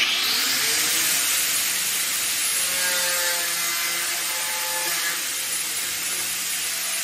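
Electric angle grinder with a cutting disc running and cutting steadily, a constant motor hum under the noise of the cut, easing off a little near the end.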